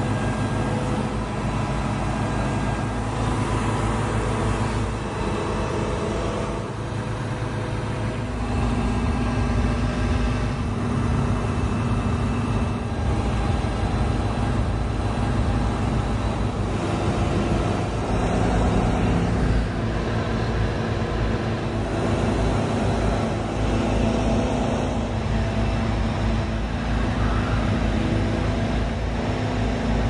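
A truck-mounted concrete pump's engine runs steadily to drive the hydraulics while its 70-meter, six-section boom moves. It makes a continuous low drone with several steady tones that shift in pitch now and then.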